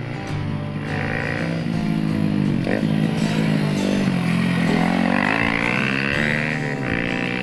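Kawasaki KLX125's single-cylinder engine breathing through an aftermarket BEAMS R-EVO stainless silencer as the bike is ridden. The exhaust note rises and falls with the throttle, dipping briefly about three seconds in and again near the end.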